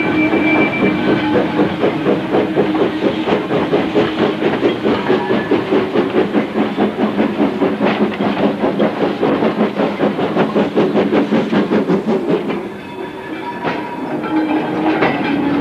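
Small steam tank locomotive passing close by with a rapid, even beat, followed near the end by its coaches rolling past with sharp clicks over the rail joints.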